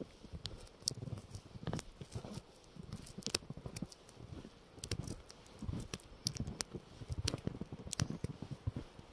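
Footsteps crunching through snow at an uneven pace, with sharp crackling clicks and low thuds.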